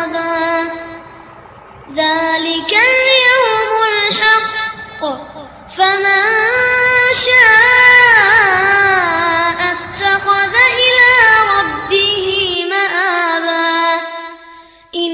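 Background song with a high-pitched singing voice, sung in phrases with short pauses between them.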